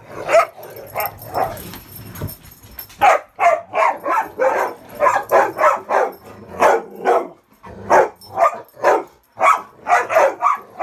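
Rottweilers barking in play, rapid high-toned play barks at about two to three a second. After a brief lull about two seconds in, the barking picks up again and runs on steadily.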